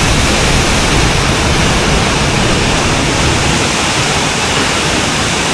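Mother Falls waterfall pouring into its pool: a loud, steady rush of falling water.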